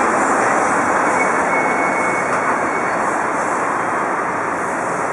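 Busy city street traffic: a steady roar of cars, vans and buses passing close by, easing slowly.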